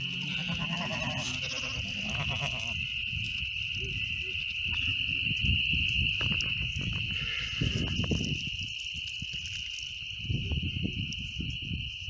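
Sheep bleating near the start, over a steady high-pitched night chorus that runs throughout, with low rustling and bumps later on.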